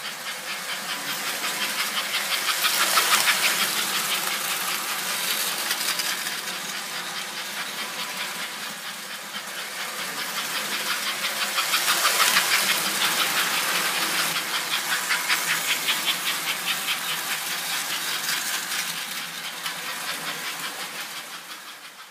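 American Flyer 302 AC S-gauge toy train running on its track: a fast, steady clatter of wheels and motor with a faint steady hum. It grows louder about three seconds in and again about halfway through as the train passes close, then fades out at the end.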